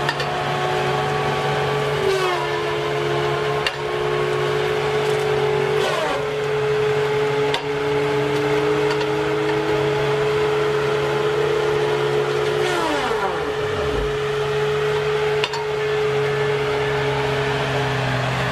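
Tree-felling machine's engine and chainsaw running with a steady mechanical hum; the pitch falls three times, about 2 s, 6 s and 13 s in, the last glide sliding far down.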